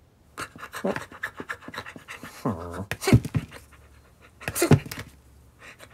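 Cartoon puppy panting excitedly in short bursts, with a brief whining vocal sound about two and a half seconds in and a few sharp clicks.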